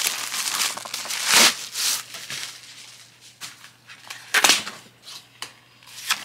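Packaging crinkling and rustling in several short bursts as a torn plastic mailer with a bubble-wrapped item and a cardboard box are handled and pulled open.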